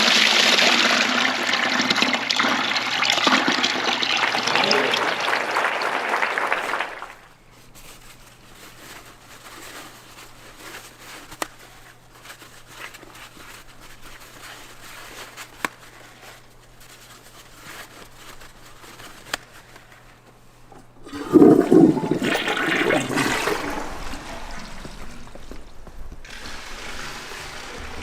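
Toilet flushing a load of toilet paper: a loud rush of water for about seven seconds, then quieter trickling with a few sharp clicks. A second loud rush of water starts about three-quarters of the way through and lasts several seconds.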